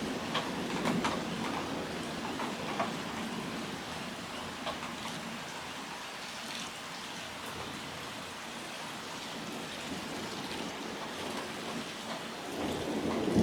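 Steady heavy rain during a thunderstorm, with close drops tapping near the microphone. A thunder rumble dies away in the first second or two, and another begins to build near the end.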